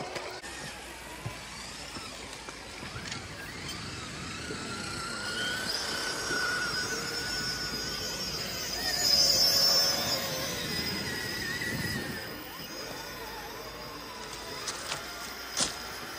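Small electric RC crawler trucks running, their motors and gears whining and rising and falling in pitch with the throttle, loudest about nine seconds in. A few sharp clicks near the end.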